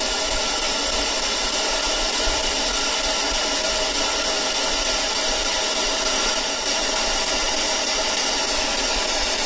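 Steady, loud hiss of static noise with faint steady tones running through it.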